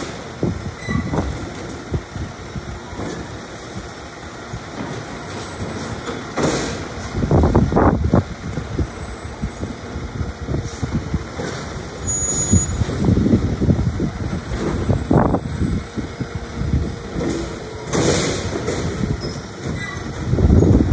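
Labrie Automizer automated side-loader garbage truck running its engine while its hydraulic arm grabs, lifts and empties trash carts. Repeated bangs and clatter come as the carts are handled and the trash falls into the hopper, with short hissing bursts.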